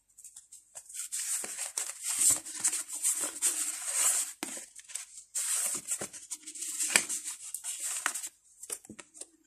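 A deck of oracle cards being shuffled by hand: irregular bursts of rustling and sliding card against card, with light clicks and slaps.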